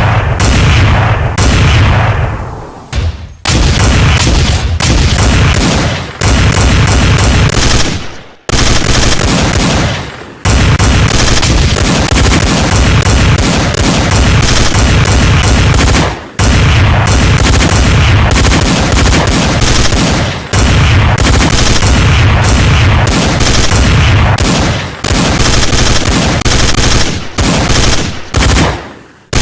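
Loud gunfire sound effect: dense bursts of rapid, machine-gun-like shots running several seconds at a time, with short breaks between runs.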